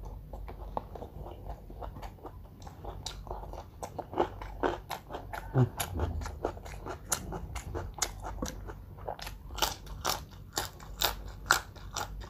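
Close-miked biting and chewing of crunchy food: a dense, irregular run of crisp crunches, with a dull low thump about halfway.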